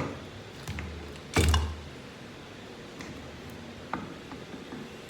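Metal automatic-transmission parts being handled on a workbench: one heavy clunk about a second and a half in, with a few lighter clicks and taps around it.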